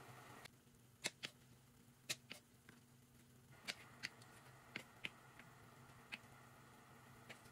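Kitchen knife slicing cucumber on a wooden cutting board: about ten sharp, irregular taps of the blade against the board, over a faint steady hum.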